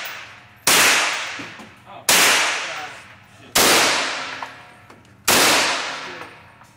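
Four single shots from a 9mm semi-automatic rifle, fired one at a time about a second and a half apart, each followed by a long echo in the indoor range.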